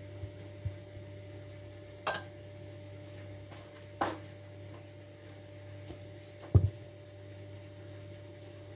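Kitchen utensils and containers clinking and knocking about six times, the loudest a dull thud about two-thirds through, over a steady low hum.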